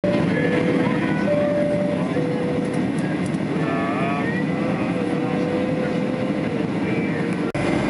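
Passenger jet cabin noise on a night landing approach: a steady low rush of engines and airflow, with a thin engine whine that shifts in pitch a few times. The sound cuts out for an instant near the end.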